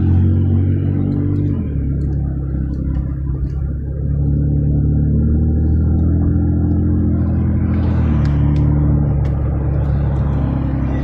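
Car driving away from a stop, heard from inside the cabin: a steady low engine and road rumble that changes pitch a few times as it gathers speed.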